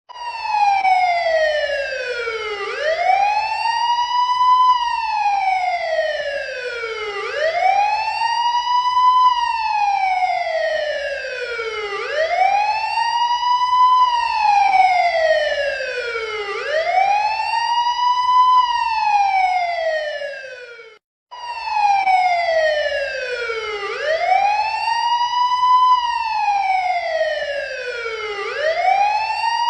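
Police patrol car siren sounding a wail: the pitch slides slowly down, then sweeps back up, a full cycle about every four and a half seconds. It cuts out for an instant about two-thirds of the way through, then carries on.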